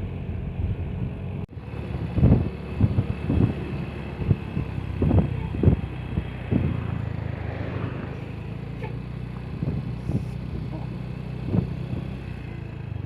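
A vehicle engine running steadily with a low hum, broken by irregular dull buffets of wind on the microphone, most of them in the first half.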